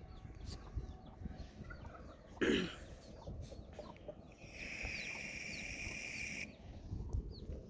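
Chicks peeping, with a hen clucking, and one louder low call about two and a half seconds in. A steady high-pitched hum runs for about two seconds in the middle, over low wind rumble.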